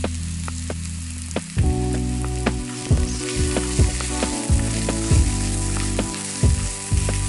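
Beaten eggs with red onion sizzling in a hot frying pan as they set and are stirred into scrambled eggs, over background music with a steady beat.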